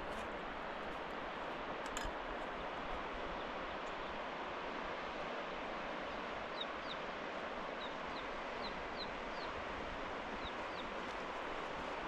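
Steady rush of a mountain river. In the second half a bird gives a series of short, high chirps.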